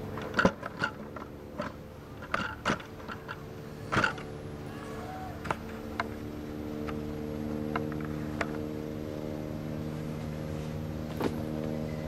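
An engine or motor running steadily, a low hum of several pitches, with sharp clicks and knocks scattered mostly through the first half.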